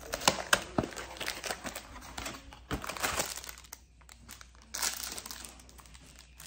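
Foil Pop-Tart wrapper crinkling as it is handled. There is a run of sharp crackles over the first three seconds, a short pause, then another burst of crinkling.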